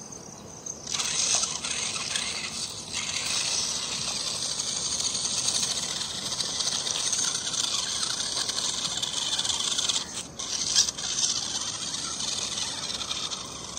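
Small electric RC rock-crawler's motor and gearbox running with a high buzzing whine as it climbs a dirt slope, briefly cutting out about ten seconds in as the throttle is let off.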